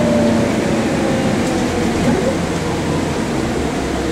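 Cabin noise of a 1996 Scania L113CRB route bus under way: its rear-mounted six-cylinder diesel runs with a steady low rumble, and a whine slides down in pitch over the first second or so.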